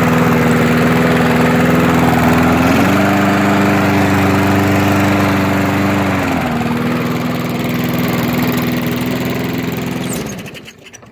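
Lawn mower's small gasoline engine running steadily at low throttle. Its pitch steps up a little about three seconds in and drops back about three seconds later. Near the end it is shut off and winds down to a stop.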